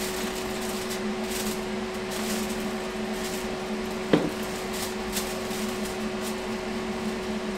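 Aluminium foil crinkling in short bursts as it is pulled open from around a piece of cooked meat, over a steady low machine hum. A single sharp knock sounds about four seconds in.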